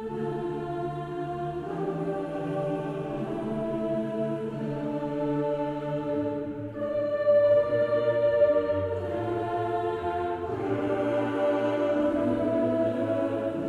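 Background music: slow, sustained chords that change every few seconds.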